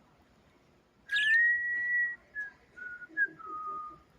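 Whistling: one held note for about a second, then a few short notes stepping downward. A budgerigar gives a short sharp chirp as the whistle begins.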